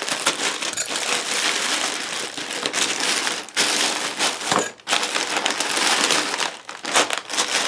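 Plastic packaging crinkling and rustling steadily as a package is handled and unwrapped, with a couple of brief pauses and a few sharper crackles.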